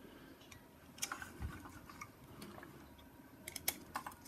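Small screwdriver clicking and scraping on the metal terminal screws of a plastic smoke-detector base as wires are seated and a terminal screw is tightened. Faint scattered ticks, with a cluster of sharper clicks about three and a half seconds in.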